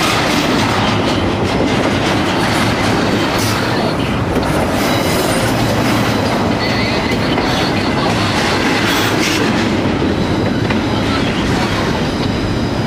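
CSX double-stack intermodal freight train's well cars rolling past close by: a loud, steady rumble of steel wheels on rail with clickety-clack, and a faint high wheel squeal now and then.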